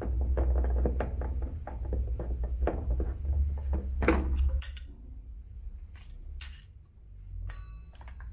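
Rapid clicking and knocking of an elliptical's plastic covers and screws being handled and fitted, over a low rumble, for about the first four and a half seconds. After that it goes quieter, with a couple of sharp taps and a short buzzing tone near the end.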